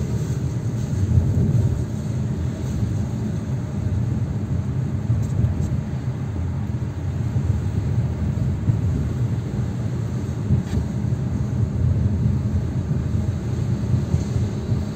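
Steady low rumble of a car driving at low speed on city streets, the engine and tyre noise as heard from inside the car.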